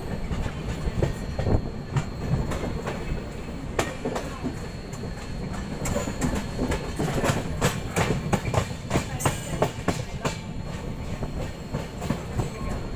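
Indian Railways passenger coach running along the line, its wheels clattering over rail joints under a steady rumble. The clacks come thick and fast through the middle of the stretch.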